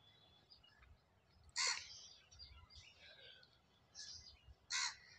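Cumin seeds crackling faintly in hot oil in a frying pan, with two short, loud, harsh bird calls about three seconds apart.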